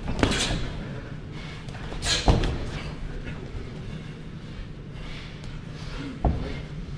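Boxing gloves landing with sharp thuds during sparring: one just after the start, the loudest about two seconds in, and another near the end.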